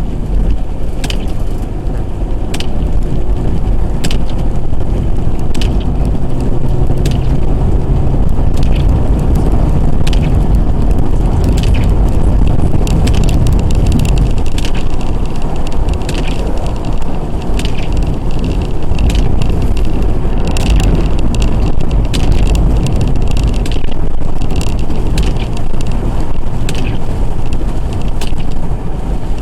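Car on the move, heard from inside: a steady low road-and-engine rumble with irregular small rattles and ticks running through it.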